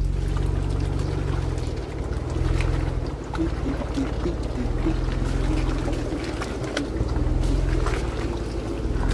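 Off-road vehicle's engine running, a steady low drone that eases off briefly about two and three seconds in.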